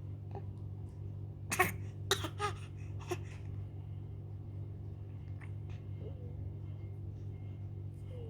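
A little girl's short explosive breaths from nose and throat, four quick bursts over about a second and a half, the first the loudest. A steady low hum runs underneath.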